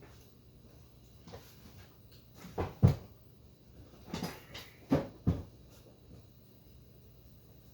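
A series of short, dull knocks and thumps: a pair about two and a half seconds in, the second the loudest, then three more over the next few seconds, typical of gear being handled and set down on a work surface.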